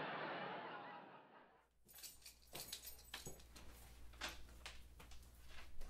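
Studio audience laughter from a TV sitcom, fading out over the first second and a half. Then a low steady hum with scattered light clicks and faint metallic jingling.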